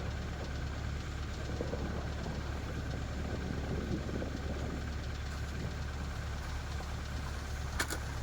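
Car engine idling steadily, with two sharp clicks close together near the end.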